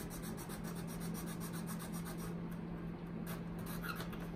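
Small file rasping back and forth on a wooden violin bridge, about five short strokes a second, smoothing the bridge's cut-out so the pickup can sit in it. A steady low hum runs underneath.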